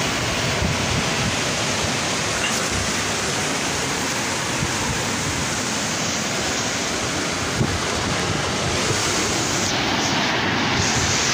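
Sea surf washing onto the shore: a steady, continuous rush of waves with no distinct breaks.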